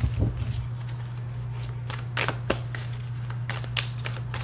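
A tarot deck being shuffled by hand: several short, sharp card clicks and slaps, over a steady low hum.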